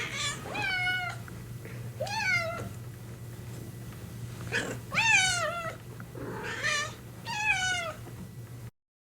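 Domestic cat meowing repeatedly, about six meows, each dropping in pitch at its end, over a steady low hum. The sound cuts off suddenly near the end.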